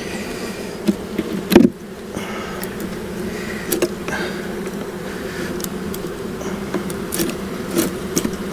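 Honeybees buzzing around an open hive, a steady drone, with a few sharp knocks and clicks over it, the loudest about a second and a half in.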